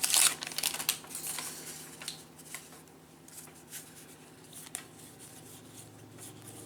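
Stack of Topps baseball trading cards being handled and flipped through, the cards sliding and tapping against each other in soft swishes and light ticks, loudest in the first second.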